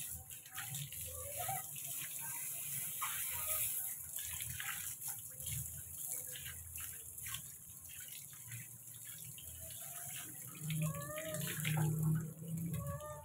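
Water from a garden hose spraying steadily onto a wet monkey and splashing on a concrete floor, with a few short pitched sounds near the end.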